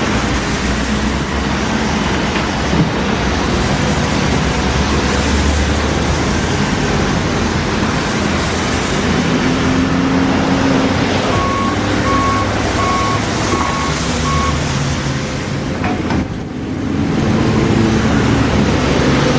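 Excavator's diesel engine running with heavy machine noise. About halfway through, a warning alarm gives about five short, evenly spaced beeps.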